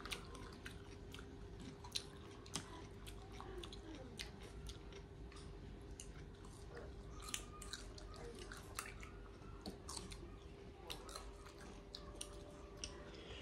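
People chewing and biting food close to the microphone, with many short crunchy clicks and mouth sounds scattered throughout, over a faint steady hum.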